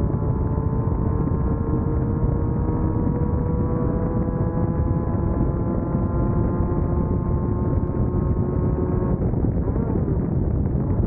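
Class 1600 off-road race buggy's air-cooled VW flat-four engine running hard, its pitch climbing slowly over a dense, steady noise of the ride. About nine seconds in the engine note changes.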